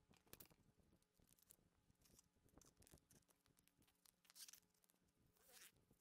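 Very faint crafting noises: scissors cutting through tape-wrapped styrofoam, and short scraping, rustling sounds of the material being handled, the loudest about four and a half seconds in.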